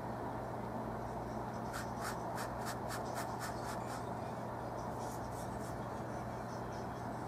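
A flat bristle brush with oil paint stroking across textured canvas: a run of short scratchy strokes, about four a second, for a couple of seconds, then a few fainter ones, over a steady low hum.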